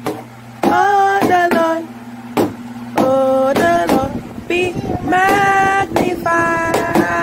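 A young child singing loudly in short phrases, holding some notes, with brief pauses between phrases.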